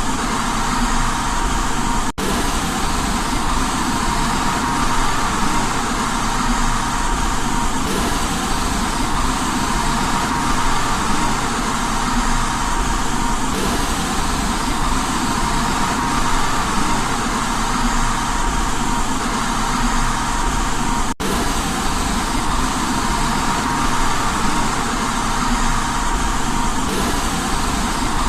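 Steady white noise for baby sleep: an even, unbroken hiss with a faint steady tone in it, cutting out for an instant about two seconds in and again about twenty-one seconds in.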